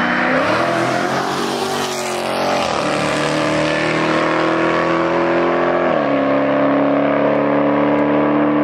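A Dodge Hellcat and a motorcycle accelerating hard in a roll race. One engine note climbs steadily in pitch and drops sharply at upshifts about three and six seconds in, then climbs again.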